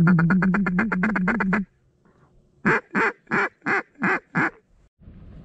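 Hand-blown duck call sounding a fast run of about sixteen quick quacks, then, after a short pause, six separate quacks about three a second, calling to incoming ducks.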